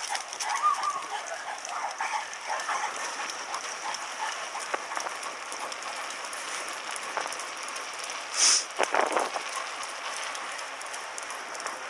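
A bicycle rolling over paving and cobblestones with a dog running alongside: steady rattling and rapid clicking and tapping, with a short loud hiss about eight and a half seconds in, followed by a few knocks.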